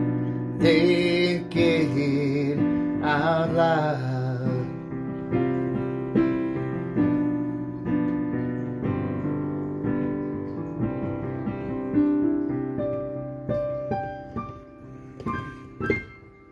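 Digital piano playing the slow closing chords of a ballad, with a held sung note that wavers with vibrato from about one to four seconds in. The playing then thins to a few high single notes and dies away near the end.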